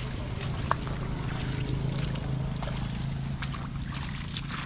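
A small engine running steadily at low speed, with scattered light clicks over it.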